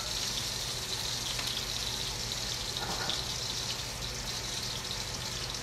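Hot steak grease sizzling steadily in a skillet on the stove after the steaks have come out, with a faint low hum underneath.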